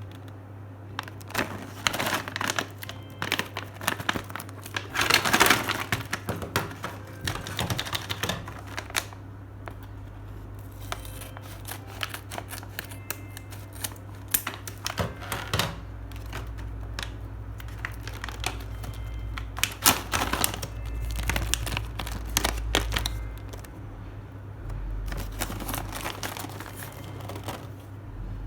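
Packaging crinkling and rustling as it is handled, in irregular bursts, over a steady low hum.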